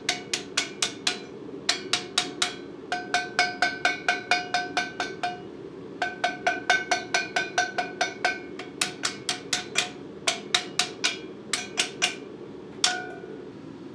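Hand hammer striking a steel plate down over a cone mandrel, in quick runs of about four blows a second with short pauses and a single last blow near the end; each blow rings with a clear metallic tone. The hammering trues a cut hole in the plate round on the mandrel.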